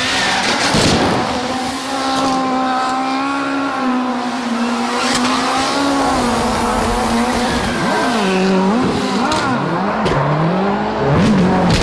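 Ford Fiesta rally car's turbocharged four-cylinder engine held at high revs while spinning donuts, with the tyres squealing. Near the end the revs swing sharply up and down several times as the throttle is worked.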